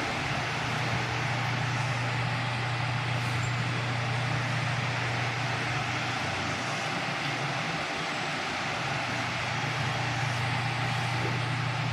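Mondial Super Power 40 cm six-blade desk fan running steadily: an even rush of air over a low, constant motor hum.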